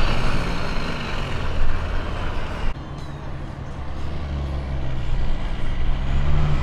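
Diesel semi truck engine working hard under load while dragging a pulling sled, with a faint falling whistle. It cuts off abruptly about a third of the way in, and a quieter diesel semi engine runs in its place, slowly getting louder and rising in pitch near the end.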